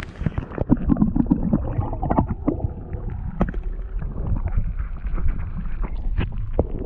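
Water sloshing and gurgling right at the microphone, heavy and muffled in the low end, with many small knocks.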